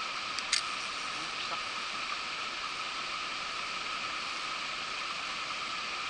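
Steady hiss of a small mountain stream's running water. A single sharp click about half a second in.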